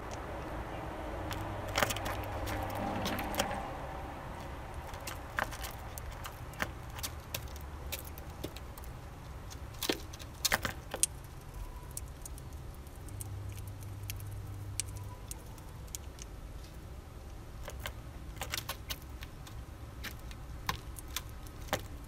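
Male Eurasian bullfinch pecking and husking sunflower seeds in a feeder tray: irregular sharp clicks and taps of beak on seeds and husks, a quick cluster of louder ones about ten seconds in, over a low background hum.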